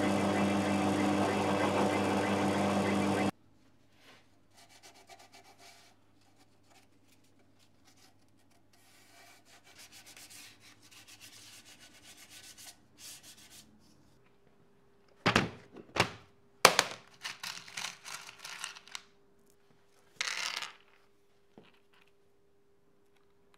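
A drill running steadily as it bores a pilot hole into the wooden amplifier case, stopping abruptly about three seconds in. Then quiet rubbing and handling of the wooden case, and around halfway through several sharp knocks and clatters, the loudest sounds here, with a short scraping burst a few seconds later.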